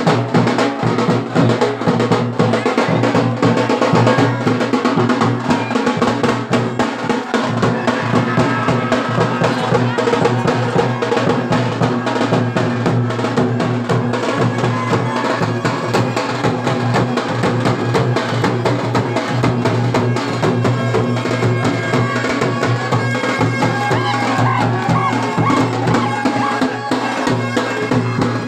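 Loud procession drumming in a fast, dense rhythm, with a reedy wind instrument playing held notes over it, clearer in the last third.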